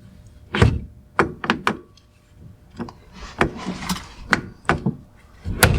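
Irregular knocks and clicks of a racing steering wheel on an NRG quick release being worked back onto its hub, with a brief rustle about halfway through.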